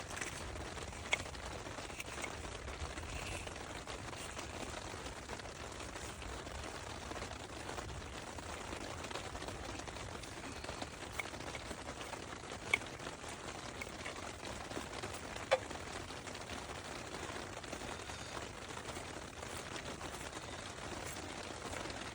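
Steady rain hiss, with a few sharp clicks scattered through, the loudest about 1, 13 and 15 seconds in.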